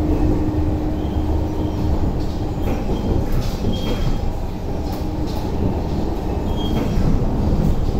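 Interior of a Metro Cammell (MLR) electric multiple unit running at speed: a deep, bass-heavy rumble from the old DC traction motors and wheels, with a steady hum that fades out and returns, and scattered clicks and faint brief squeals.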